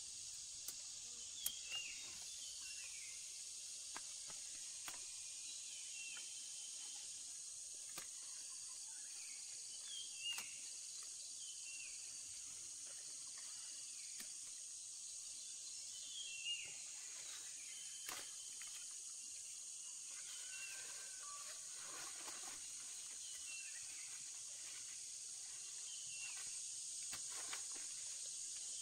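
Outdoor rural ambience: a steady high-pitched insect chorus, with birds calling in short falling chirps now and then and a few faint clicks.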